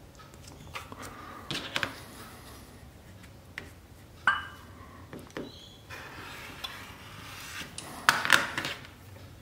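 Rotary cutter and acrylic quilting ruler on a cutting mat: a sharp click about four seconds in as the cutter is brought to the ruler, a soft rasp as the blade rolls through the fabric along the ruler's edge, and a cluster of louder clicks and knocks near the end as the cut finishes.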